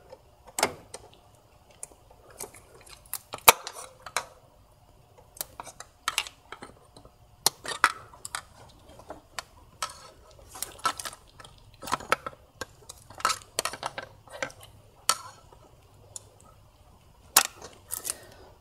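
Screwdriver prying the plastic retaining tabs of the fuel injector wiring loom rail free from the intake manifold: a string of irregular sharp clicks and snaps with light tool-on-plastic clattering. The loudest snap comes about three and a half seconds in.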